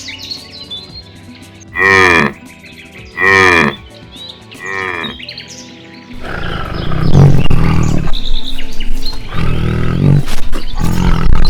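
Cattle mooing: three short calls with falling pitch, a little over a second apart, then a long, low, rough moo from about six seconds in.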